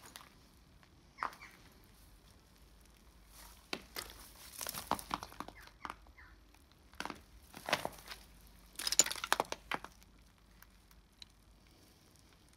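Footsteps crunching on broken glass and rubble, in scattered bursts of sharp crunches, the loudest cluster about nine seconds in.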